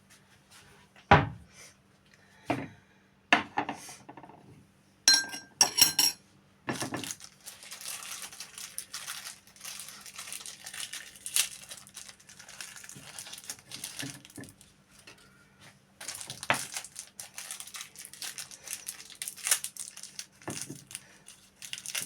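Dishes and utensils being handled: a few sharp knocks, with two ringing clinks about five to six seconds in. Then long stretches of crinkling and rustling, like plastic packaging being handled.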